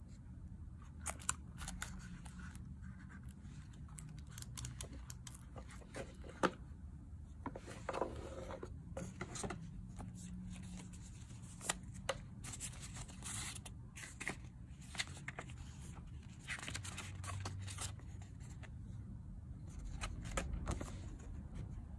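Close-up handling of a mouse's paper leaflet and sticker card: rustling and scraping of paper and card, with scattered sharp clicks and taps.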